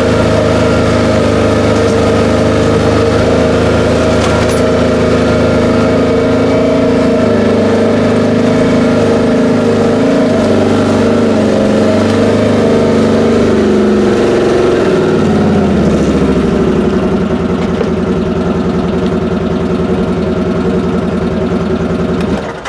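A vehicle engine running steadily and loudly close by. Its pitch drops about 15 seconds in as it slows, and the sound cuts off suddenly near the end.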